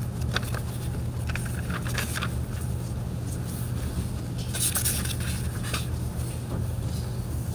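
Pages of a Bible being turned and handled: a few soft papery ticks and rustles, then a longer rustle about halfway through, over a steady low hum.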